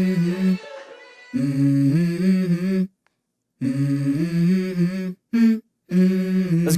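Background music: a wordless hummed vocal line sung in short phrases, cut by brief dead-silent gaps, ending on a spoken "let's go".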